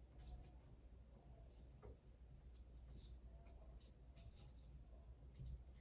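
Faint handling noise of a silver chain and pendant being picked up and arranged: a scatter of light scrapes and rustles over a low steady hum.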